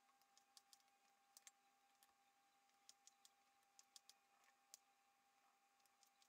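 Very faint, irregular clicks of a kitchen knife dicing a tomato on a cutting board, blade tapping the board at uneven intervals.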